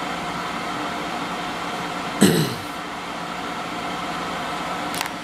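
Waykar PD160B dehumidifier running on high: steady fan air and the hum of its compressor, which the owner is pretty sure is a reciprocating unit. About two seconds in there is a brief, loud sound with a falling pitch, and a single click comes near the end.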